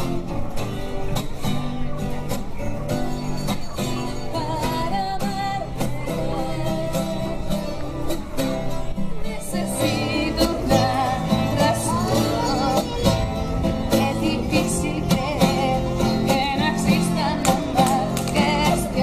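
Acoustic guitar played with sung vocals over it; the singing comes in a few seconds in and grows stronger about halfway through.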